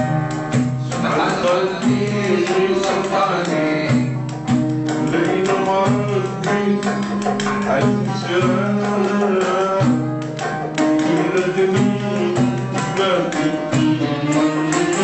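Live music from a small ensemble: an electronic keyboard and an acoustic guitar playing, with a hand drum beating a steady rhythm.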